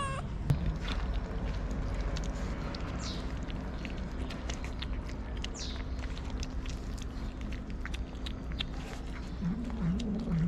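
Cats eating wet food from a plate: a steady run of small, quick wet clicks and smacks of chewing and licking. A low wavering sound comes in near the end.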